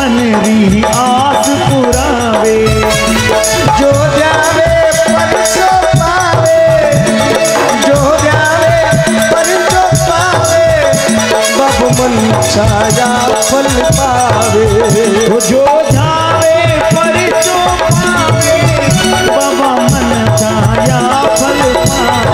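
Live Rajasthani devotional bhajan music played on harmonium, dholak, keyboard and small brass hand cymbals (manjira), with the cymbals jingling steadily over a held drone note and a wavering melody.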